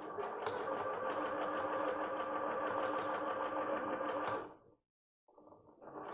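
Computerized sewing machine stitching through lace: a steady motor whir with fast, even needle ticks for about four and a half seconds. It stops briefly, then starts stitching again about a second later.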